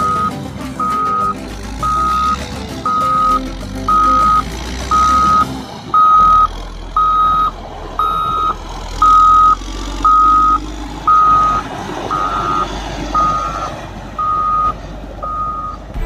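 Caterpillar 120K2 motor grader's reversing alarm beeping steadily about once a second, each beep about half a second long, over the diesel engine running: the grader is backing up.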